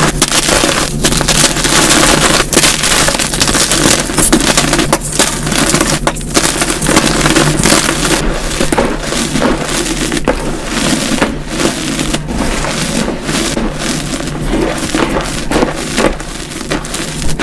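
Dyed gym chalk blocks being crumbled and squeezed by hand: dense, continuous crunching and crackling of chalk breaking into crumbs and powder, played at double speed and broken by brief gaps every second or so.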